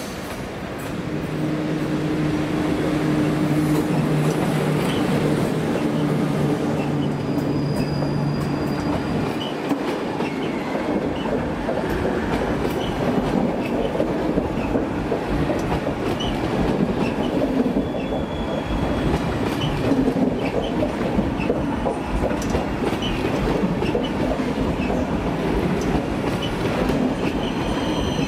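PKP Intercity EP09 electric locomotive hauling a passenger train past, with a steady electric hum for the first nine seconds or so. Then the passenger coaches roll by close: a continuous rumble of wheels with clickety-clack over the rail joints and a few faint, brief wheel squeals.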